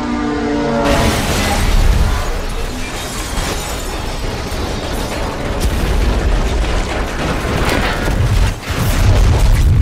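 Movie sound design of two semi-trucks colliding head-on: a held pitched tone cut off about a second in by a heavy crash, then continuous deep booming with crunching metal and scattered debris hits. A short dip near the end is followed by another loud impact.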